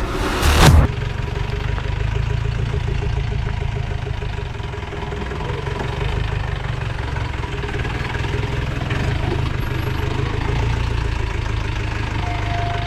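Safari jeep's engine running steadily with a deep, even sound, after a brief loud burst in the first second.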